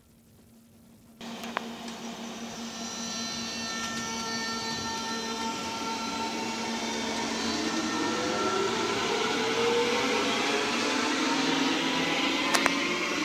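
NS Sprinter (SGM) electric multiple unit moving along the platform, its traction motors whining in several tones over steady wheel-on-rail noise. The sound starts suddenly about a second in, grows louder, and a tone rises in pitch as the train picks up speed.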